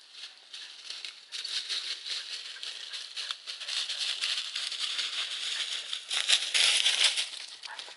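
Dry fallen leaves crunching and rustling underfoot, a dense crackle of small clicks that grows louder and peaks near the end.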